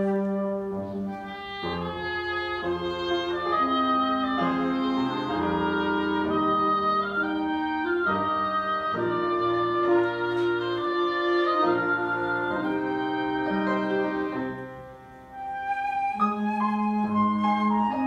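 Live chamber music of flute and other woodwinds over upright piano. Slow, sustained melodic lines overlap, with a brief drop in loudness near the end before the phrase picks up again.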